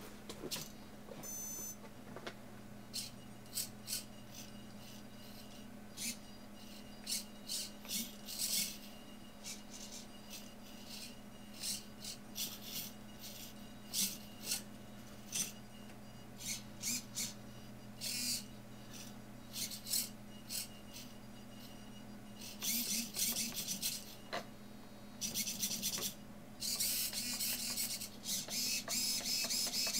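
Small hobby RC servos in a pan-and-tilt neck mechanism whirring in short, high buzzing bursts as the puppet head pans, tilts and cocks, with longer stretches of continuous servo buzz in the last several seconds. A steady low hum runs underneath, and a short beep sounds about a second and a half in.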